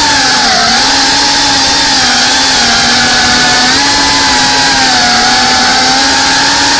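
GEPRC Cinelog 35 cinewoop FPV drone's motors and propellers running with a loud, steady buzzing whine, the pitch wandering slightly and rising a little about four seconds in.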